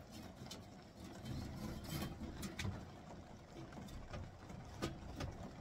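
Faint scattered clicks and light rubbing of a metal stovepipe and its corrugated elbow being handled and fitted, over a low rumble.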